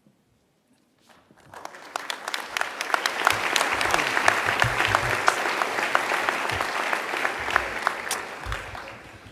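Audience applauding in a hall. The clapping starts about a second and a half in, builds quickly, holds, and dies away near the end.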